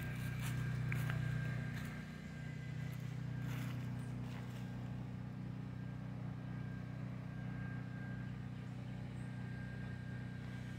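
A steady low engine hum, running at an even speed throughout, with a few faint clicks in the first few seconds.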